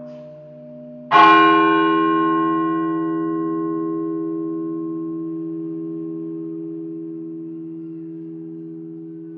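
A large bell struck once about a second in, its ringing slowly fading over the following seconds while its low hum pulses in a slow wobble.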